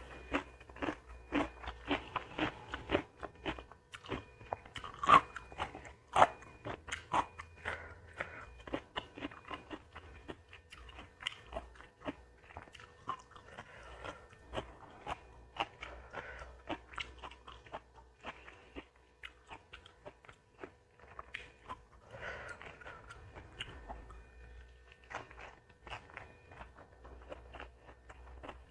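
Close-miked eating: crunchy bites and chewing in an irregular run of sharp crunches. The crunches are loudest and thickest in the first several seconds, then settle into softer chewing.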